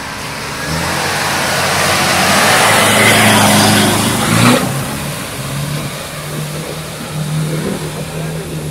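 Nissan Terrano 4x4 driving through a deep mud and water crossing: its engine revs under load while water and mud splash around it, loudest as it passes close by. About halfway through, the engine note drops sharply and settles at a lower, steadier pitch as the car pulls away through the water.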